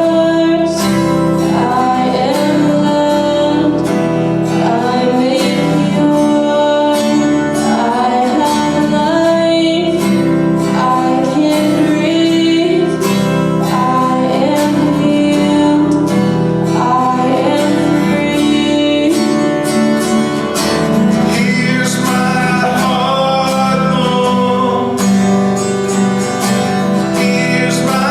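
A worship song: a singer over strummed acoustic guitar.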